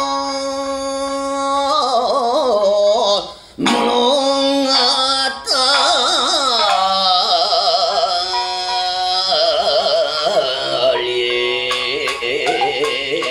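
A male rōkyoku singer's voice holds long, strongly wavering sung notes in the genre's gravelly, strained style, accompanied by shamisen plucks. The voice breaks off briefly about three and a half seconds in, then carries on.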